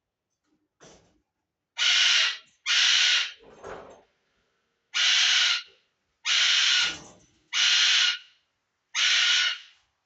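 Pet bird screaming over and over: six loud, harsh screeches, each under a second long and spaced about a second apart, the bird agitated at its owner's scream of pain.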